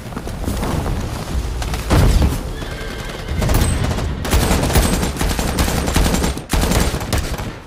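Battle sound effects of dense automatic rifle fire, rapid shots overlapping, with a heavy boom of an explosion about two seconds in.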